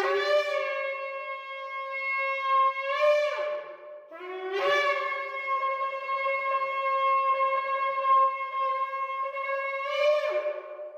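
A 36-inch shofar blown in two long blasts, the first about three seconds and the second about six. Each starts on a lower note, steps up to a held note, and ends with a brief upward flip in pitch before breaking off.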